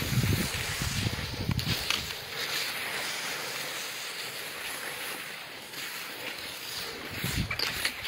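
Steady hiss of rain falling on snow, with wind rumbling on the microphone through the first two seconds and again briefly near the end.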